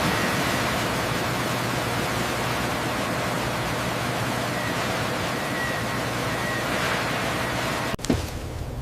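A steady, even rushing hiss that starts abruptly and cuts off suddenly about eight seconds in.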